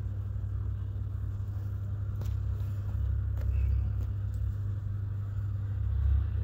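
Steady low rumble of background room noise, with a few faint clicks of clothes hangers as garments on hangers are held up and shifted around.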